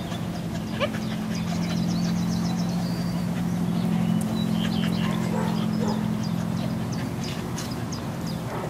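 A steady low motor hum, rising a little in the middle and easing off towards the end, with scattered short high chirps and clicks over it.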